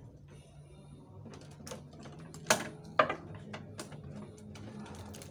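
Handling of rawhide shadow puppets: a few sharp clicks and knocks with some clatter as puppets are moved and taken up, the loudest two about half a second apart in the middle.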